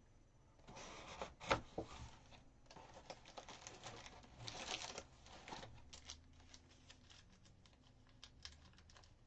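A sealed trading-card hobby box being opened by hand: wrapping torn and crinkled, cardboard handled, with scattered clicks and one sharper click about a second and a half in.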